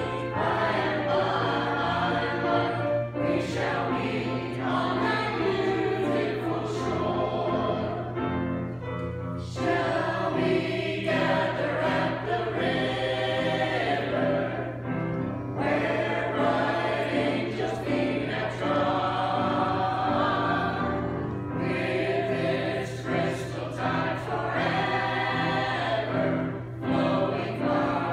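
Church choir of mixed men's and women's voices singing together in phrases, with a steady low hum underneath.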